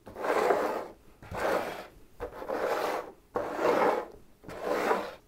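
Camping mugs slid across a wooden tabletop in a shell-game shuffle: five scraping slides, about one a second.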